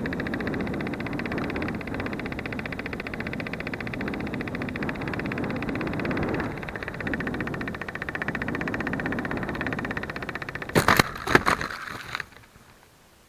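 Steady rushing noise with a fast flutter, picked up by a small camera riding on a free-flight model aircraft in flight. Near the end come a few sharp cracks and rustles as the model flies into a tree's branches and leaves, and then the noise cuts off.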